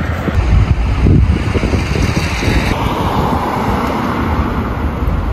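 Road traffic going by, with wind blowing on the microphone.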